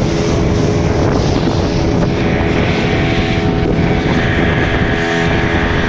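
Motorboat engine running steadily under way, with wind buffeting the microphone; a higher whine joins about two seconds in.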